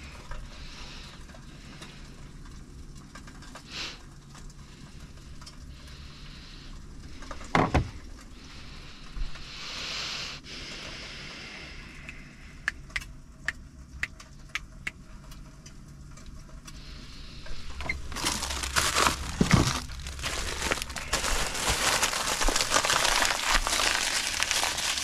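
Food being handled and cooked: crinkling and scattered clicks and knocks over a low steady hum, then from about eighteen seconds in a loud steady hiss.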